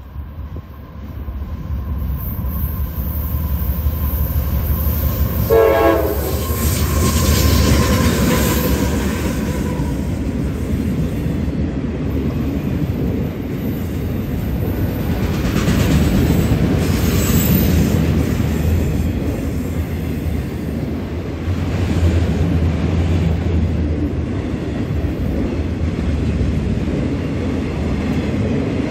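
Freight train passing close by: CSX diesel locomotives run past, with a short horn blast about six seconds in. A long string of autorack cars then rolls by with a steady rumble and wheel clatter.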